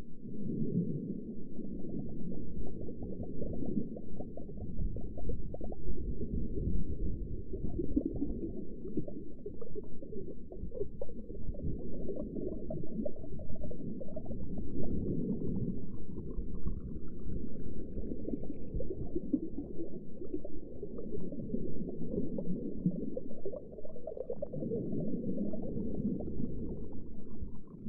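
Underwater ambience: a steady, muffled low rumbling and bubbling of water heard below the surface, with faint rising whistles about halfway through and again near the end.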